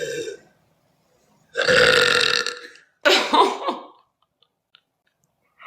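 A girl's long, loud burp about a second and a half in, lasting over a second, followed at once by a second, shorter throaty sound.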